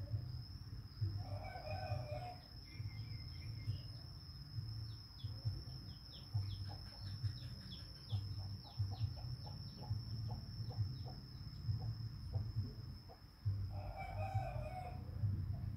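A rooster crowing twice in the background, once about a second in and again near the end. In between comes a run of quick, descending small chirps, over a steady high-pitched whine.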